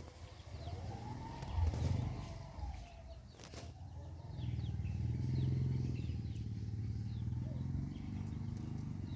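Chickens calling inside a poultry house: many short high chirps and one longer call that rises and falls over about two seconds. A low rumble sets in about halfway through and is the loudest part.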